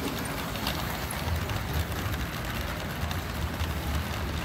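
A Lego train passing close by: a low rumble from its motor and wheels on the plastic track that swells as it goes past, with faint scattered clicks, over steady hall noise.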